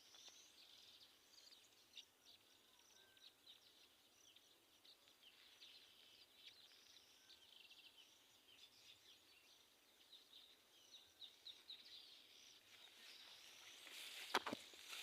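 Faint chattering of a flock of small birds feeding in millet, many quick high chirps overlapping throughout. A single sharp knock near the end.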